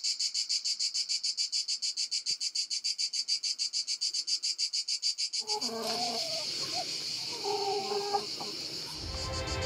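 Insects chirping in fast, even pulses, about eight a second. After about five and a half seconds the insect sound turns to a steadier buzz and hens cluck over it. Music with a low beat comes in near the end.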